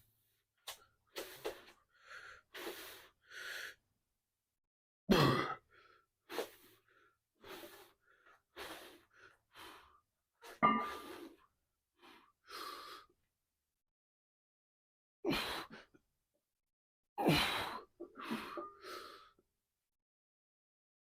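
A man's hard breathing: short, forceful breaths and exhales one after another with pauses between, the effort breathing of heavy squat sets.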